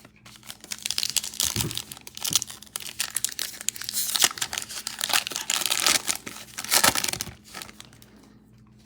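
Plastic foil wrapper of a trading-card pack being crinkled and torn open by hand, a dense crackle that stops about a second before the end.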